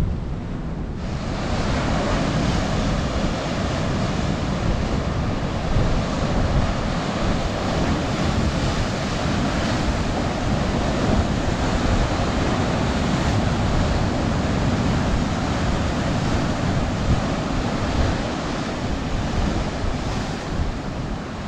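Ocean surf breaking and washing over a rocky shore, with wind buffeting the microphone and adding a low rumble. About a second in, the rushing of the surf grows fuller and louder.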